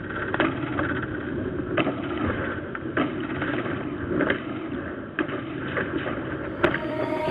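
Steady rumbling wind and water noise heard from aboard a sailing catamaran under way, with irregular knocks and clicks.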